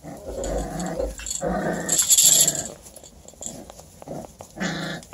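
Five-week-old beagle puppies growling in short bursts as they play-fight, with a brief hissing rustle about two seconds in.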